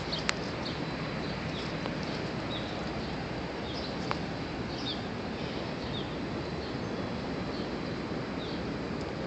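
Steady outdoor background hiss with small birds chirping faintly, a short high chirp every half second to a second. A few sharp clicks land right at the start and one about four seconds in.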